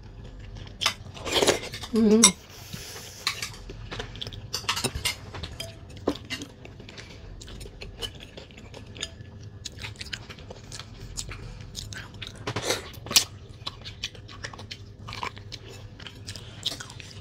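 Close-miked eating sounds: chewing and biting on food, with small clicks of chopsticks and a spoon against the bowls. A brief vocal sound comes about a second and a half in.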